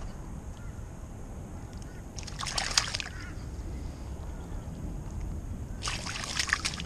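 Flathead splashing and thrashing in shallow water while held by the lip, in two short bursts about three and a half seconds apart.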